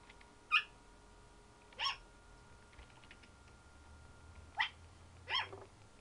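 African grey parrot imitating a dog's bark: four short barks with pauses between them.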